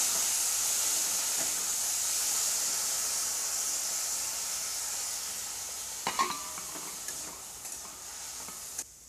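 Sliced bitter gourd sizzling loudly in hot oil in a steel kadai, the sizzle slowly dying down as it fries. About six seconds in there is a brief clink of metal on the steel pan.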